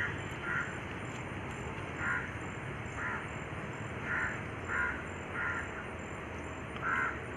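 Crows cawing repeatedly outdoors, about eight short harsh caws at irregular intervals over a steady background hiss.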